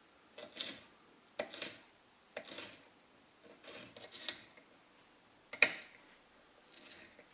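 Small kitchen knife dicing green bell pepper on a wooden cutting board: crisp cuts with the blade knocking the board, about one a second, the sharpest a little past halfway.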